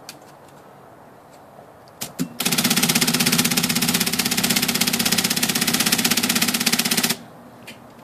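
IBM Selectric typewriter mechanism running under power, its carrier stepping across the machine with a loud, rapid, even clicking that lasts about five seconds and cuts off suddenly. Two single clicks come just before it.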